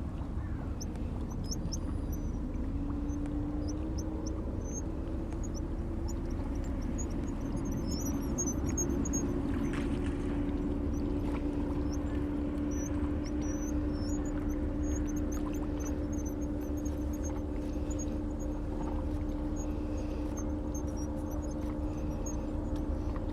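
A steady motor hum over a low rumble; the hum's pitch rises slightly a few seconds in, then holds. Many short, faint, high peeps are scattered throughout.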